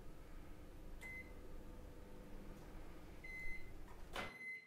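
Microwave oven running with a faint steady hum and beeping: a short beep about a second in, then longer beeps near the end, as the heating cycle finishes. A sharp click comes near the end, as the door is opened.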